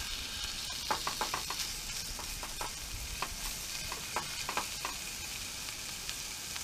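Mackerel fillets searing in a hot frying pan, a steady sizzle, with sharp clicks and scrapes of a metal knife and a spatula against the pan as the fillets are turned, mostly between about one and five seconds in.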